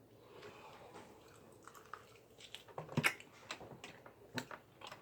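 Close-up eating sounds: chewing with a run of short wet clicks and smacks, starting faintly and loudest about three seconds in.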